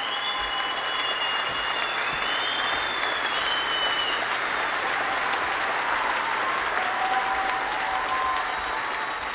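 Large arena crowd applauding and cheering, with a few long, high, steady tones over it in the first few seconds.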